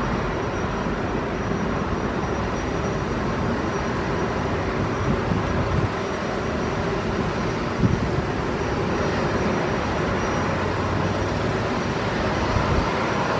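Steady airport apron noise: engines and ground vehicles running, with a faint high whistle throughout and a brief knock about eight seconds in.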